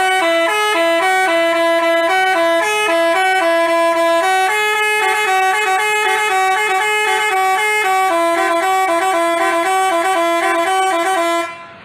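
Basuri telolet bus horn playing a melody of short stepped notes, two tones sounding together, cutting off near the end.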